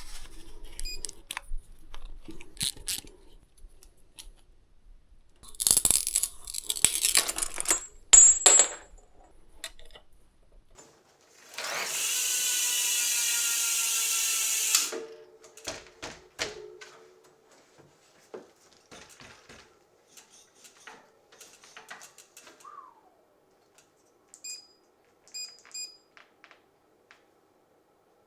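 Bike-workshop sounds of parts being swapped: scattered clicks, rattles and handling noises of tools and components, and a small power tool whirring for about three seconds near the middle. A few short electronic beeps sound near the end.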